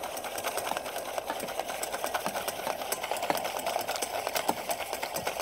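Coil whisk beating egg yolk in a stainless steel bowl: a fast, even clicking of the wire against the metal, several strokes a second. This is the hand whisking that emulsifies the oil into a mayonnaise.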